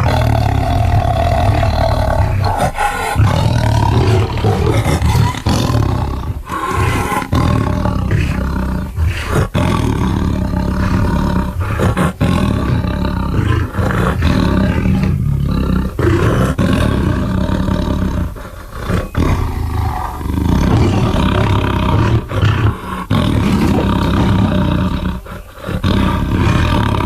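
Designed dinosaur sound effects for a Mapusaurus: a string of loud, deep roars with short breaks between calls.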